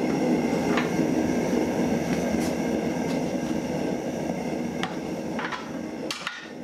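Propane forge burner running, a steady rushing noise with a few light clicks, fading out near the end.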